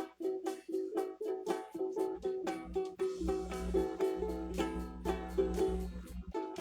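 Acoustic guitar strummed in a steady rhythm of quick chord strokes, about three to four a second.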